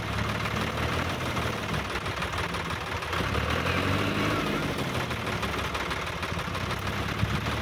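Sonalika DI-50 RX tractor's diesel engine running steadily, hitched to a loaded tipper trailer.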